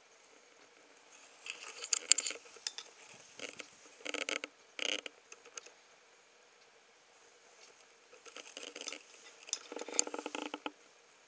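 Newborn kittens suckling and shuffling against their mother's fur: spells of soft wet clicks and rustling, three times, the last the longest.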